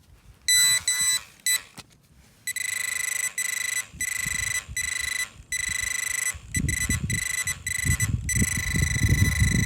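Metal detector sounding on a buried target: a few short beeps, then a steady high buzzing tone that cuts in and out over and over. Low scraping and rustling of digging start about six seconds in. The target turns out to be a small flat button.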